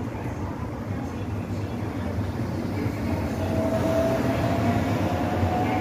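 Seoul Line 4 early-type flat-front electric train pulling away on the next track: a steady low rumble, joined about halfway through by a thin electric motor whine that slowly rises in pitch as it accelerates.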